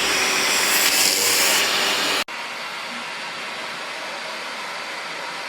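Vacuum cleaner running with a steady noise. About two seconds in, the sound cuts abruptly to another, quieter steady running noise.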